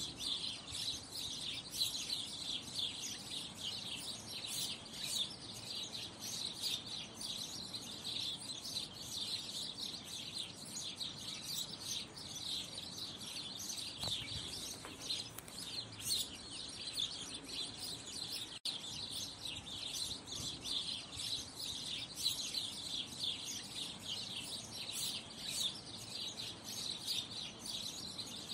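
Continuous high-pitched chirping and twittering of small birds, many quick chirps overlapping without a break.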